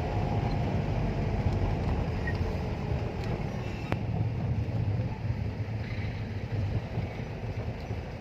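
Steady rumble of a car driving, with engine and road noise and no distinct events.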